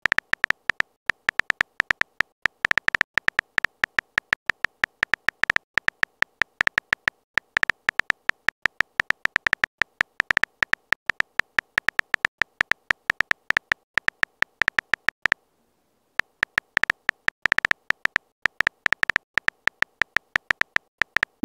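Texting Story app's keyboard typing sound effect: a fast run of short, identical clicks, one per letter as a message is typed, pausing for about a second some fifteen seconds in.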